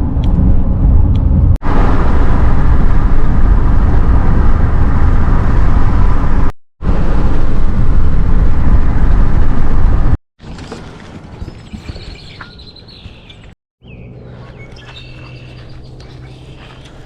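Loud road and engine noise of a car on the move, in three cut-together clips, dense and low-pitched. About ten seconds in it gives way to much quieter outdoor sound with birds chirping, and a steady low hum in the last few seconds.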